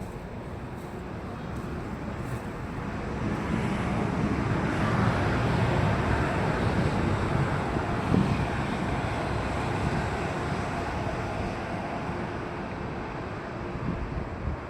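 Shinkansen train passing: a rushing noise that swells over a few seconds, holds, and fades away.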